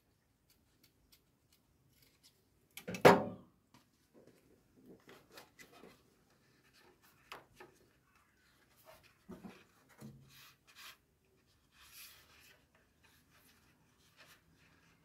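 Hands fitting a cardboard template against the sheet-steel bulkhead of a car's engine bay: one loud knock about three seconds in, then scattered light taps, rubs and rustles as it is pressed into place.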